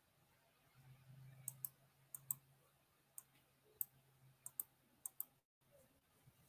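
Faint, irregular clicking at a computer: about ten sharp clicks, some in quick pairs, over a faint low hum.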